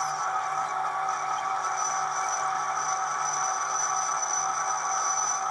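South Bend lathe running steadily under a cut on a large plate disc, a constant mechanical whine of several steady tones.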